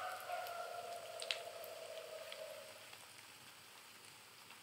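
Hot oil sizzling gently with scattered small pops and crackles as sesame-coated potato sticks shallow-fry in a pan. A faint steady whine runs under it and fades out after about three and a half seconds.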